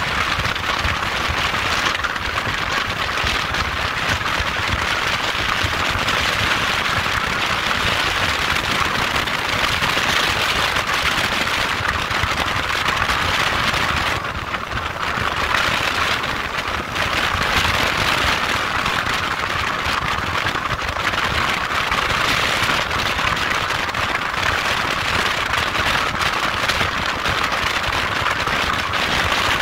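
Steady rushing noise of a motorcycle on the move, wind and road hiss over a low engine rumble, easing briefly about a quarter of a minute in.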